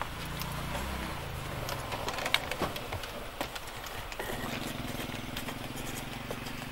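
Scattered wooden knocks and clicks as a rope-strung charpai is lifted, turned upright and carried, its frame bumping; the loudest knock comes about a third of the way in. A low steady hum runs underneath near the start and again from about two-thirds in.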